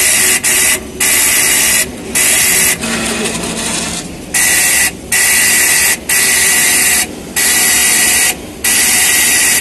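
Dot-peen marking machine's stylus hammering characters into a metal vehicle data plate. It gives a loud, high buzz in stretches of under a second, with about eight short breaks between them.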